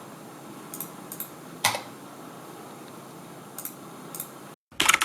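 Mechanical keyboard keys being pressed: a few separate clicks over a low hiss, then a quick run of key presses near the end.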